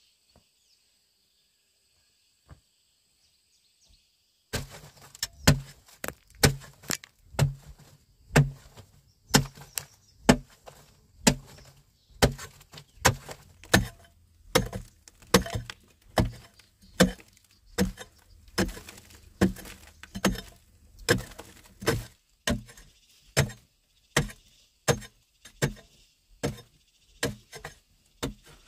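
Short-handled pick striking a wall of compacted earth and shale again and again, a little more than one blow a second, each a sharp dull chop. The blows start about four and a half seconds in.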